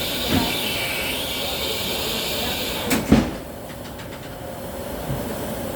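Steady steam hiss from the steam locomotive Tornado. About three seconds in there is a single heavy knock, after which the hiss falls away.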